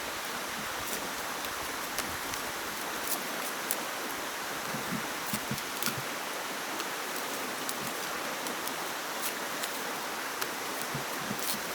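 Steady rushing water noise, like a stream or heavy rain, with scattered light clicks and taps at irregular intervals.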